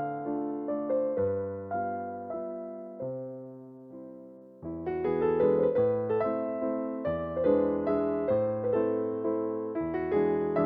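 Background piano music: soft chords and a melody, the notes struck and dying away, thinning to a few held notes that fade out about four seconds in before the playing picks up again.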